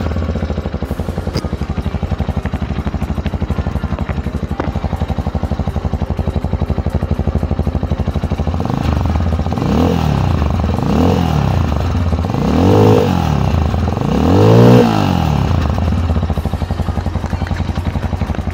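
2019 Axo Tracker 250 motorcycle engine idling in neutral, then revved four times in a row from about halfway through, each rev rising and falling, the last two the highest, before it settles back to idle.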